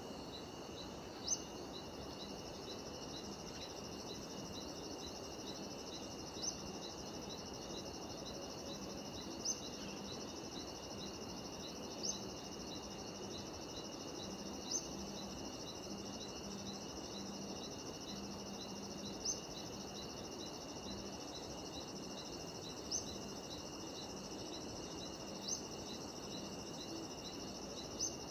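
Steady chorus of cicadas in tropical forest, a continuous high buzz with a fast run of repeated chirps. A short, sharp rising call stands out above it nine times, every few seconds.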